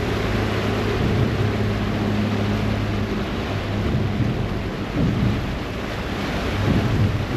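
A harbour ferry under way: a low, steady engine hum with loud rushing and churning water from the wake behind the boat.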